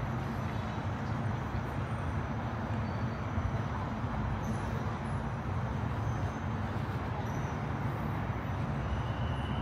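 Steady road traffic noise: an even, low rumble of vehicles with no single one standing out.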